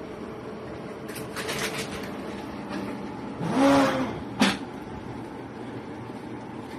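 Steady low hum of a cake display refrigerator. A rustle comes about a second in, then a short rubbing noise with a tone that rises and falls, and a sharp knock just after it.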